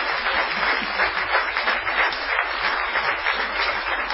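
Audience applauding, many hands clapping steadily at a fairly loud level.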